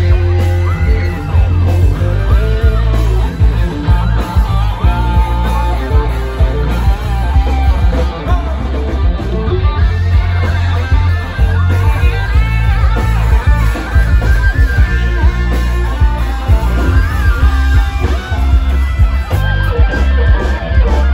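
Live band playing loudly through a PA, with heavy bass, electric guitar and drums under a male singer's voice.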